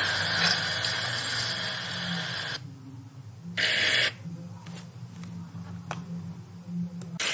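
Small electric motor and plastic gears of a toy remote-control excavator whirring as it moves, stopping about two and a half seconds in. A short burst follows about a second later, then a few faint clicks before it whirs again near the end.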